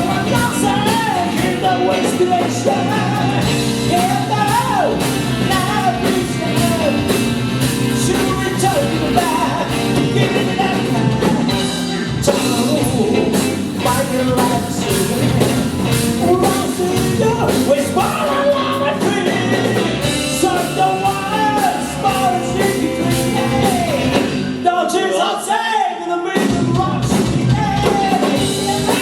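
Live band playing a rock-and-soul number, a wavering melodic lead line carried over drums and bass. About 25 seconds in, the bass and drums drop out for a moment before the full band comes back in.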